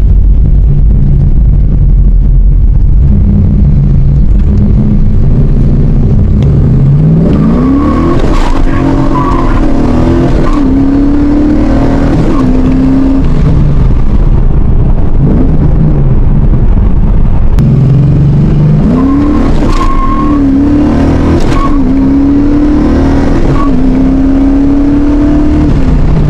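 A car engine running loudly with a heavy rumble, then accelerating hard twice. Each time the revs climb and hold, dropping briefly at each of several gear changes.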